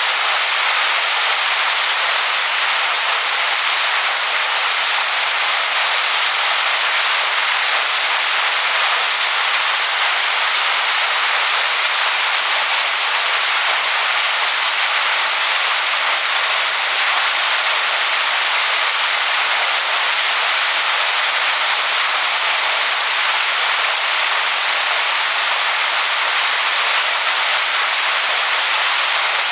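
Waterfall rushing over stones: a loud, unbroken hiss of falling water, heavy in the high end with little low rumble.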